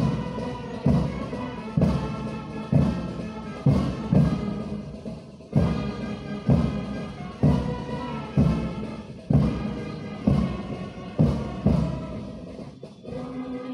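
Orchestral music with sustained brass and a deep drum stroke about once a second; the drum strokes stop a little before the end while the music carries on more softly.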